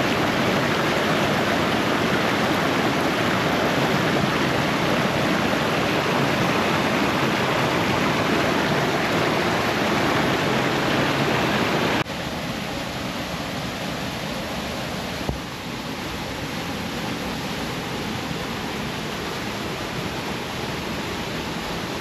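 Waterfall on the Rio Ave: a steady rush of falling water. It drops suddenly to a quieter level about halfway through and dips slightly again a few seconds later.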